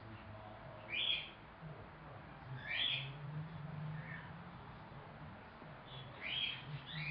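Young cockatiel giving short rising chirping calls, four or five of them spaced a second or two apart.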